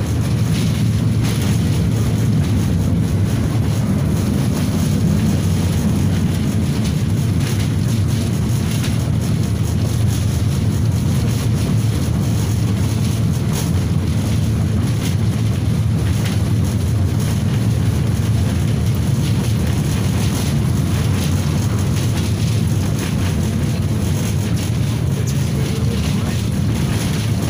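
KTM-5M3 (71-605) tram running along the line, heard from inside the passenger car: a steady low rumble of wheels on rails and traction motors, with frequent small clicks and rattles.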